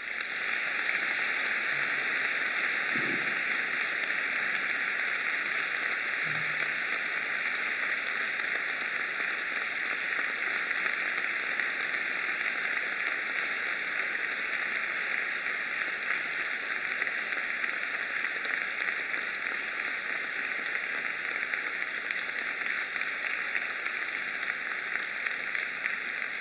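Large audience applauding in a hall, the applause breaking out suddenly and keeping up at a steady level.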